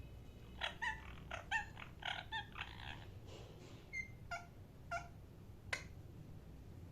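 A parrot gives a quick run of short, sharp chirping calls, then four single calls spaced about half a second apart.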